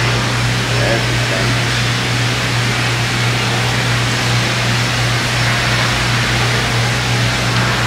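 Steady rushing machine noise with a constant low hum, even throughout with no rhythm or breaks.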